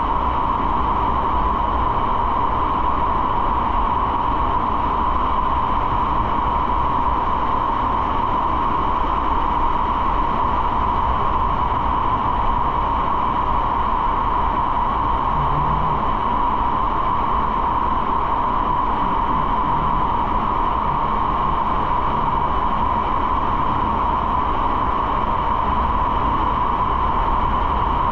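Steady riding noise from a motorcycle under way: wind rushing over the microphone over a low engine and road drone, holding even throughout with no revving or change of speed.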